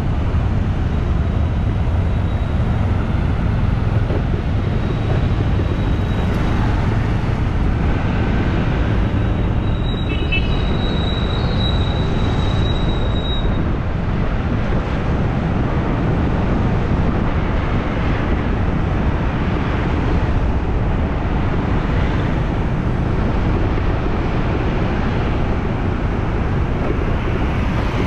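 Steady city street traffic noise, a constant low rumble, with a thin high whine for a few seconds around the middle.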